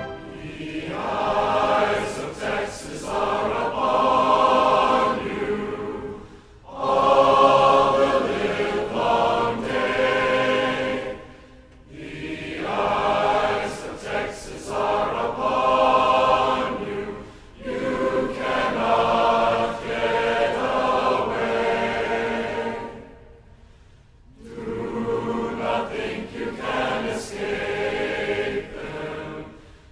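Choir singing as soundtrack music, in sung phrases a few seconds long with short breaks between them.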